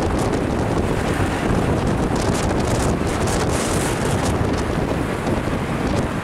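Wind buffeting the microphone at the open window of a moving vehicle, over a steady rumble of road and traffic noise.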